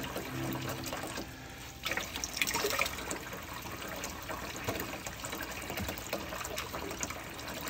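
A thin, low-pressure stream of water running from a faucet into a stainless steel sink, while gloved hands squeeze and swish tie-dyed fabric in the rinse water, splashing more from about two seconds in. The fabric is being rinsed of excess dye.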